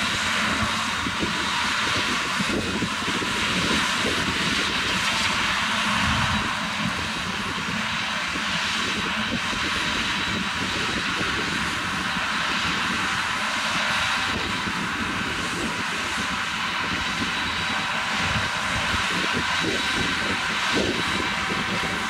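John Deere combine harvester running steadily while harvesting barley: a continuous engine and machinery drone with a broad hiss and a faint steady high whine.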